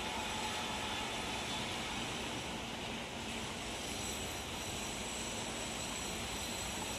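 Steady, even outdoor background hiss with a few faint, high-pitched steady tones above it; no distinct event stands out.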